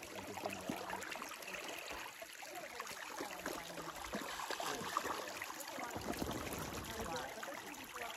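Small mountain stream trickling and babbling over rocks, an even watery hiss with many small splashy ticks.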